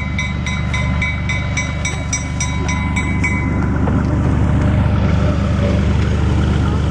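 A small diesel switcher locomotive pulling a passenger coach comes closer, its engine rumble growing louder. A bell rings about three times a second and stops about three seconds in.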